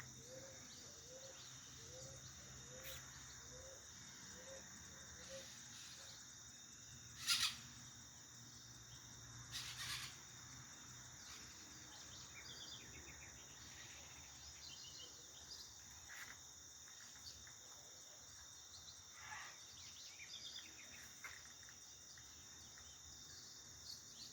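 Faint outdoor ambience: a steady high insect drone throughout, with scattered bird calls. In the first five seconds there is a run of low, evenly spaced calls, about eight of them, and two louder, sharper calls come about seven and ten seconds in.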